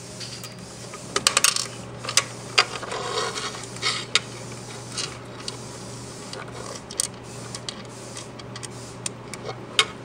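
Hands and a screwdriver working wires and crimp connectors at the terminal strip inside a sheet-metal switch box: scattered sharp clicks, taps and short scrapes, busiest in the first three seconds, over a steady low hum.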